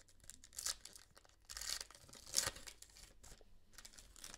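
Foil wrapper of a Revolution basketball card pack being torn open and crinkled by hand: a few short rips, at about half a second, around a second and a half, and about two and a half seconds in, with lighter crinkling between.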